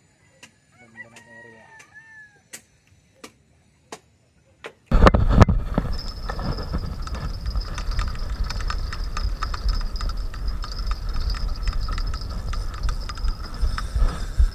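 A faint rooster crow and a few light clicks, then about five seconds in a sudden loud, steady rushing noise with a thin high whine: wind and handling noise on an action camera's microphone while a spinning rod is bent into a hooked cream dory.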